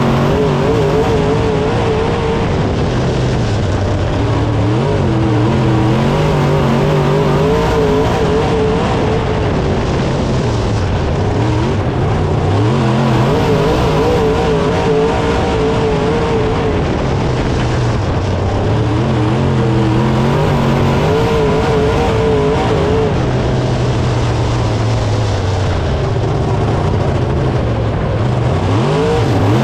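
Dirt late model race car's V8 engine at racing speed, heard from inside the cockpit. The revs drop as it backs off into each turn and climb again down each straight, a cycle of roughly seven seconds repeating through the whole stretch.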